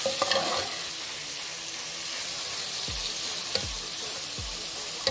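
Sliced tomato, onion, garlic and ginger sizzling in hot oil in a metal pot as a spoon stirs them, with a steady hiss and a few sharp clicks of the spoon against the pot.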